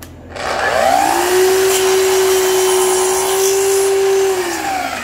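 Festool Kapex sliding miter saw starting with a rising whine, running at a steady pitch as its blade cuts through a wooden board, then winding down quickly near the end as the motor is braked to a stop.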